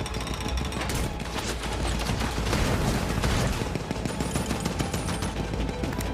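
Sustained rapid gunfire from a WWII destroyer's guns, many shots overlapping continuously over a low rumble, in a war-film soundtrack.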